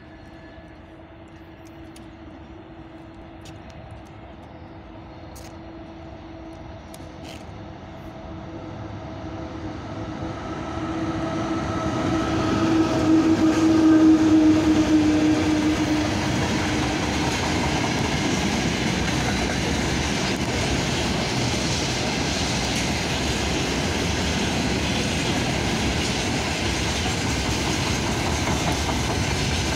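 VL80K twin-section electric locomotive approaching and passing at the head of a freight train. Its steady electrical hum grows louder and is loudest about halfway through as the locomotive goes by. After that comes the steady rolling noise of the freight wagons' wheels on the rails.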